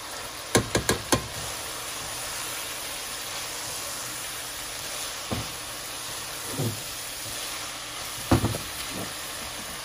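Ground beef and onions sizzling as they fry in a pan, stirred with a silicone spatula. A quick run of about four knocks on the pan comes about half a second in, and a few single knocks and scrapes follow later.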